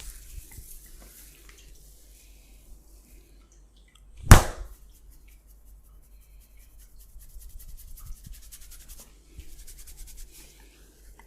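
Barber's massage on bare skin: soft rubbing and quick runs of light strokes, with one sharp, loud smack about four seconds in.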